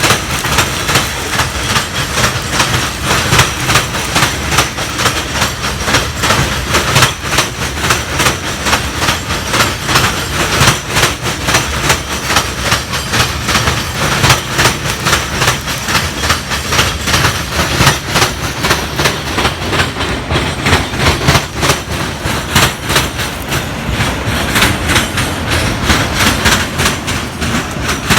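A train rolling past, its wheels clattering on the rails in a fast, steady run of clicks and knocks.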